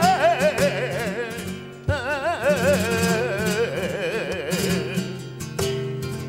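Flamenco fandango: a male singer draws out long wordless melismatic lines with a wide, wavering vibrato over flamenco guitar accompaniment. The voice stops about five and a half seconds in, leaving the guitar strumming alone.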